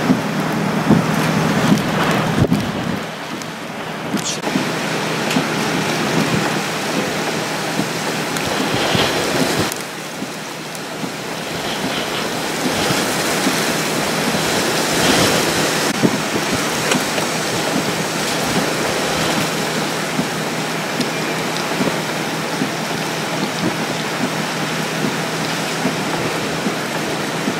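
Hurricane Harvey's wind and steady rain, a loud even hiss with gusts, dropping suddenly about ten seconds in.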